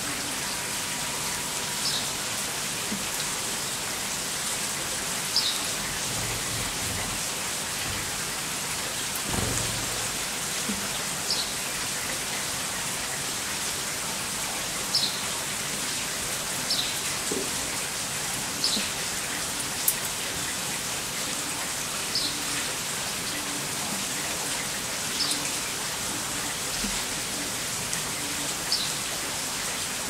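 Steady rain falling on leaves, a continuous even patter, with short high chirps of birds every few seconds. A brief low rumble, likely distant thunder, comes about a third of the way in.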